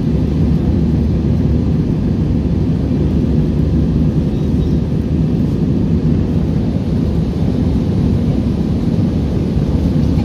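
Jet airliner cabin noise in flight: a steady low rumble of engine and airflow noise heard inside the passenger cabin.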